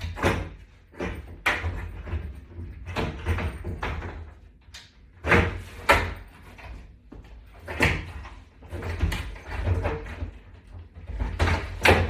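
Handling noise of a metal wall-mount bar and its butterfly toggle bolts knocking and scraping against a mock wall as the bolts are pushed through the holes: about a dozen short knocks and scrapes over a low rumble, the loudest around five to six seconds in and again near the end.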